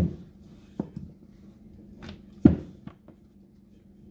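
Wooden rolling pin knocking and rolling on a granite countertop while flour-tortilla dough is rolled out. There are several sharp knocks, the loudest at the start and about two and a half seconds in.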